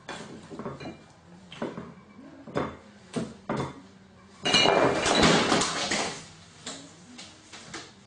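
A gull knocking about among the dishes on a kitchen counter, with a series of sharp knocks and clinks, then a loud burst of wing flapping from about four and a half seconds in as it takes off.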